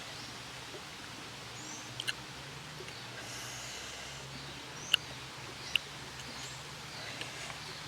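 Outdoor ambience over a steady low hum, broken by a few short, sharp clicks (a pair about two seconds in, then single ones near five and six seconds) and several brief high chirps.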